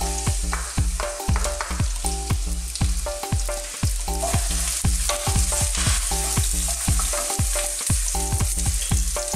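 Onion, lemongrass, lime leaves, bay leaves and green chilies sizzling steadily in hot oil with chopped garlic in a pan. Background music with a steady beat plays underneath.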